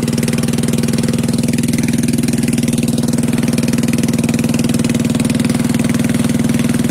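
Small fishing boat's engine running steadily under way, an even drone with no change in speed.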